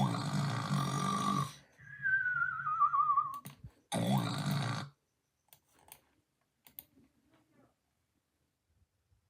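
Loud snoring with a whistling tone. A rough, rattling snore carries a steady whistle, then a long wavering whistle slides down in pitch over a low rattle, and a shorter rough snore follows about four seconds in.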